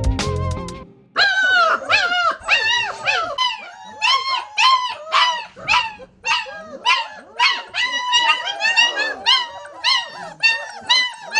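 A litter of German shepherd puppies yipping and whining, many short high calls overlapping in quick succession. Music cuts off just before the calls begin, about a second in.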